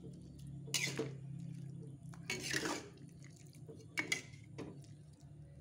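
A spatula stirring a soupy vegetable-and-shrimp dish in a wok, giving several short scrapes and clinks against the pan, with liquid sloshing. A low steady hum runs underneath.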